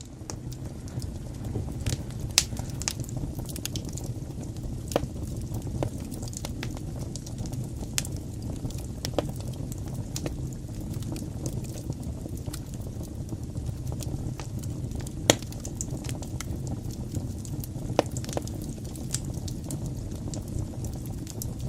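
Wood fire burning in a fireplace: a steady low rush with scattered sharp crackles and pops, the loudest about fifteen seconds in.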